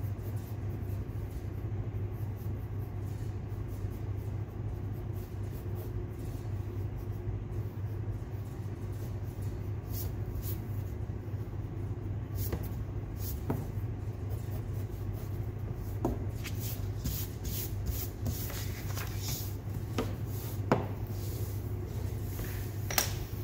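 Pencil sketching on paper over a steady low hum: light scratching strokes and taps of the pencil come in from about ten seconds in, with a couple of sharper knocks near the end.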